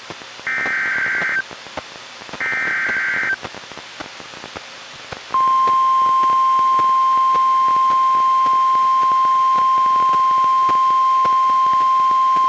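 NOAA Weather Radio alert played on a Reecom R-1630 weather radio: two bursts of the SAME digital header, each about a second of buzzy data tones, then over hiss and crackling static the steady 1050 Hz warning alarm tone comes on about five seconds in and holds. The sequence marks the start of a new warning broadcast.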